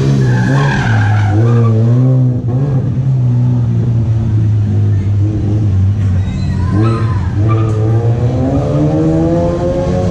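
Race car driven hard through a cone slalom, its engine revving up and down, with a tyre squeal about half a second to two seconds in; the engine note drops, then climbs again around six seconds in.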